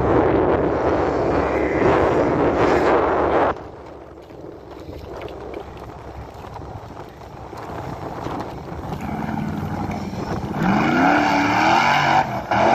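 Off-road trials buggy engine running hard on a steep hillside, dropping away abruptly about three and a half seconds in. Near the end a louder sound with a wavering, rising pitch comes in.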